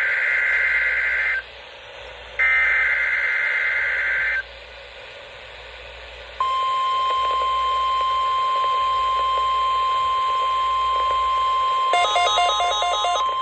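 NOAA Weather Radio weekly alarm test heard through a weather radio receiver: two screeching bursts of SAME digital header data, each about two seconds long, a second apart. Then, about six seconds in, the steady 1050 Hz warning alarm tone starts and holds, with a short warbling pattern over it near the end.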